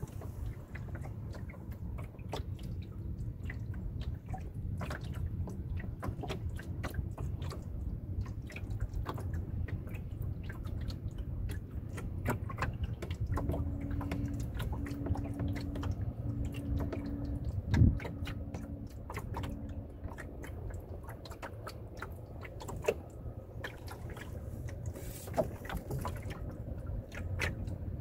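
Water slapping and lapping irregularly against a small sailboat's hull, over a steady low rumble of wind on the microphone. About halfway through comes a row of five short, low steady tones, and a single loud knock follows soon after.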